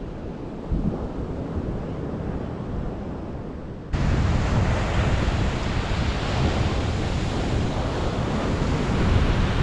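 Ocean surf breaking on a sandy beach, with wind rumbling on the microphone. About four seconds in the sound jumps louder and fuller and stays that way.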